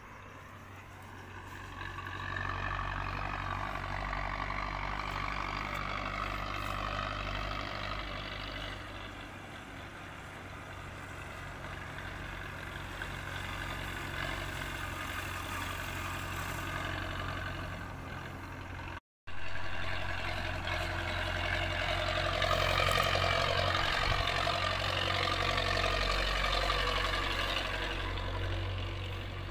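Heavy diesel truck engine running, a steady low rumble with a wavering higher whine that rises and falls; the sound drops out for a moment about two-thirds of the way through.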